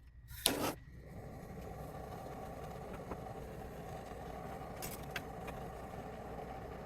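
Soldering torch flame burning with a steady, even roar, heating the joint on the refrigerator's replacement copper line. It starts with a short hiss about half a second in.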